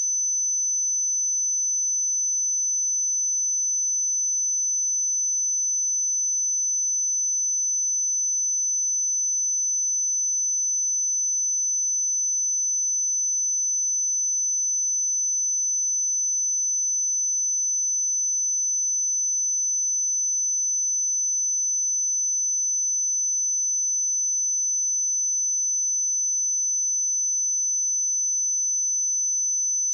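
A pure 6056 Hz sine-wave test tone, a steady high-pitched whistle held at one pitch and level.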